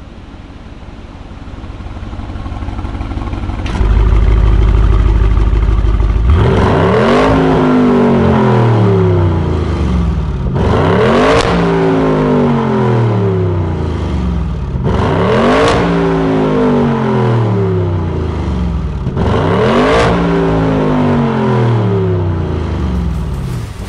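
Audi RS6 C8's twin-turbo 4.0-litre V8 running loud through an Akrapovic full exhaust with stage 2 tune. It builds over the first few seconds into a deep low drone, then four times its pitch jumps up sharply and falls away over about four seconds.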